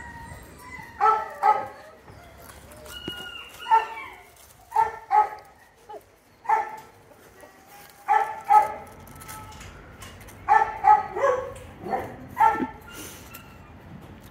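A dog barking repeatedly in short, high yaps, often two in quick succession, recurring every second or two.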